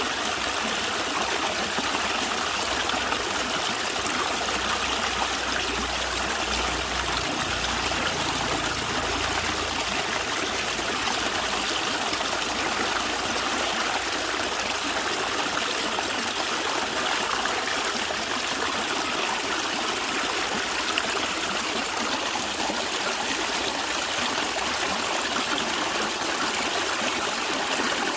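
Natural stream water gurgling and trickling steadily.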